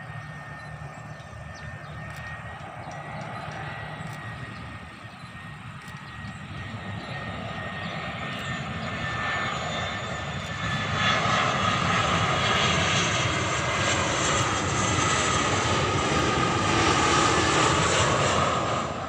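Jet airliner landing close by: engine noise with steady high whining tones, growing louder and stepping up sharply about halfway through, then staying loud.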